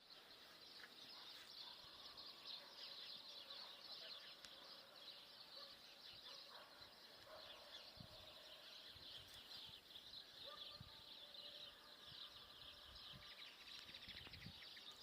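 Faint outdoor ambience of many small birds chirping steadily together, with a few soft low thumps in the second half.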